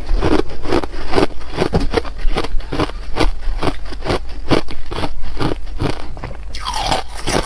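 Close-miked crunching of a mouthful of ice being chewed, a rapid run of sharp crunches about three a second.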